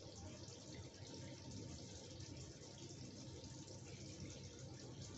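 Chicken curry simmering in a kadhai on the stove: a steady, faint bubbling sizzle.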